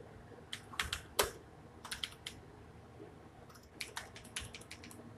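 Computer keyboard being typed on: single sharp keystrokes in short irregular bursts, with pauses between the bursts.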